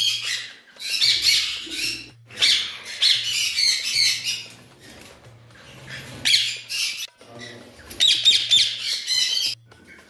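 Indian ringneck parakeets squawking: harsh, screechy calls in repeated bursts of a second or two, with a lull about five seconds in before a last long run of calls.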